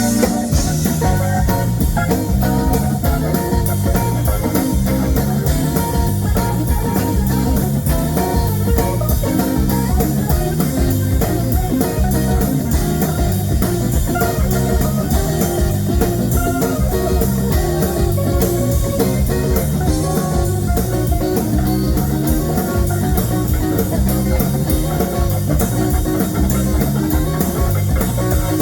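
Live blues band playing an instrumental passage: electric guitar over a moving bass line and drum kit, with the full band kicking in right at the start.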